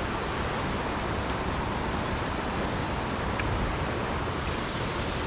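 Steady rushing of a river's current over a shallow, rocky riffle.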